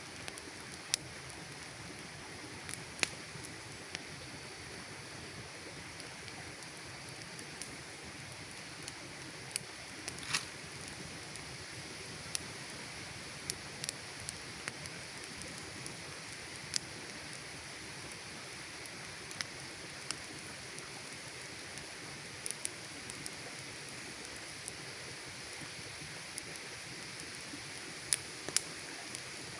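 Wood campfire burning: a steady hiss with irregular sharp crackles and pops, a few of them louder snaps scattered through.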